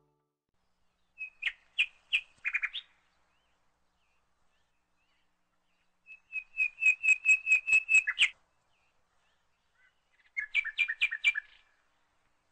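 A small bird chirping in three short bouts of quick, repeated high notes, with silence in between.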